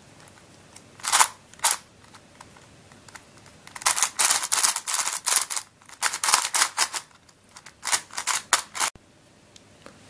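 Plastic layers of a Witeden Mixup 3x3 speedcube clicking as they are turned by hand: two single turns about a second in, then quick runs of clacking turns, cut off abruptly near the end.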